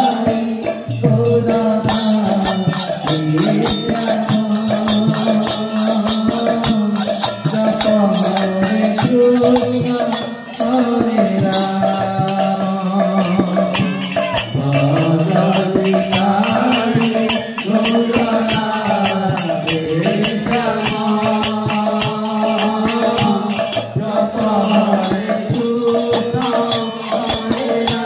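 Devotional nama sankirtan: men's voices sing a chanted melody over a two-headed barrel drum (mridanga) and a fast, steady jingle of small brass hand cymbals.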